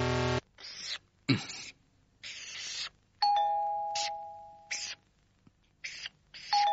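Cartoon sound effects of a marker pen drawing lines across a map: a run of short scratchy strokes. There is a brief buzz right at the start, and a bell-like two-note chime rings out about three seconds in and again near the end.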